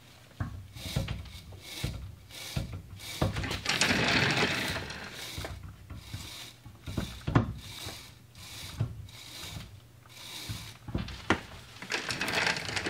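Arbor of an old three-phase grinder-polisher, with a wire wheel and a buffing wheel, turned by hand to check its freshly greased bearings: irregular clicks and knocks, with a longer stretch of rubbing noise about four seconds in.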